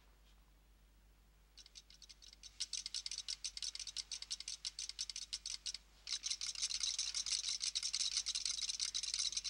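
Rapid teleprinter-like clicking chatter of a digital wristwatch printing an incoming message onto a paper tape. It starts about a second and a half in, stops briefly near six seconds, then carries on.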